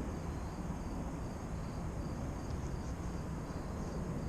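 Insects trilling steadily at a high pitch over a low rumble of wind on the microphone.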